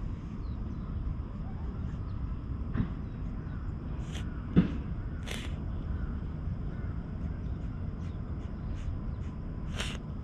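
Short rasping strokes of a rubber cat grooming brush against a tabby cat's fur, over a steady low rumble, with a sharp tap about four and a half seconds in.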